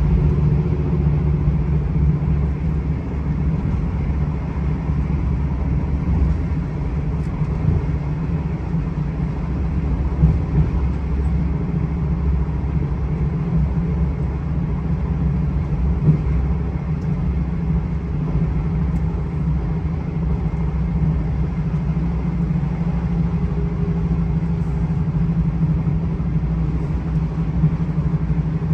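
Steady low engine and road rumble heard from inside a moving coach, with a couple of brief knocks.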